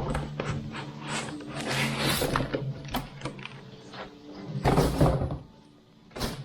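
Background music with steady low tones, over a run of short clicks and knocks from objects being handled; the loudest knock comes about five seconds in, and one more sharp click comes near the end.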